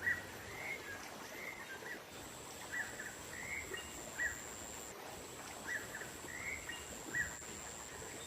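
Small songbird chirping as a bird-luring call: short bright chirps, often in quick pairs, repeating every half second or so over a hissy nature-ambience background. A steady high-pitched whine comes in about two seconds in and breaks off for a moment midway.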